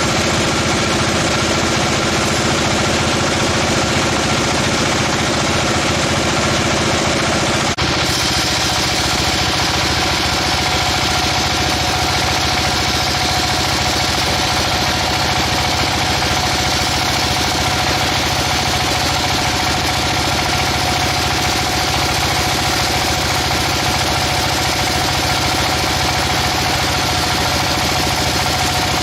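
Sawmill machinery running steadily, a dense mechanical hum with a few steady tones; the sound changes abruptly about eight seconds in.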